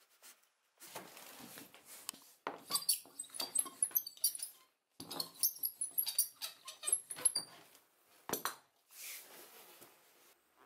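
Steel hand roller pressed back and forth along a webbing strap on a plastic cutting board, its rolling broken by many short, high squeaky chirps. A sharp knock comes about eight seconds in, followed by a short rub across the board.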